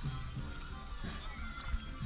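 Music playing, with low bass notes changing every fraction of a second under a higher melody; a short knock near the end.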